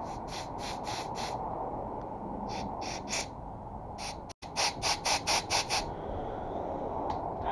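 Quick runs of short hissing blasts, about four a second, from an air blow gun blowing compressed air through a small-engine carburetor's passages to clear them. A steady low hum runs underneath.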